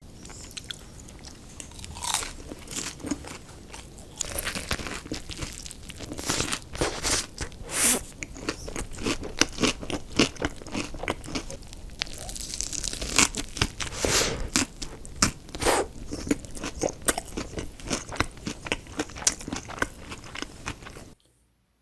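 Close-miked crunching bites and chewing of crispy fried fast food, irregular crackly crunches coming every second or so.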